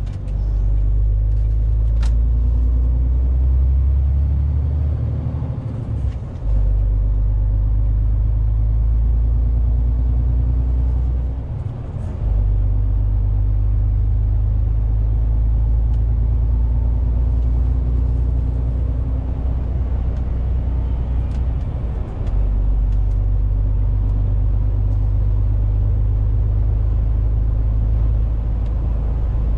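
Inside the cab of a moving MAN TGX 470 truck: a steady low drone from its diesel engine mixed with road noise. The drone dips briefly three times, about 6, 12 and 22 seconds in, with a few light clicks.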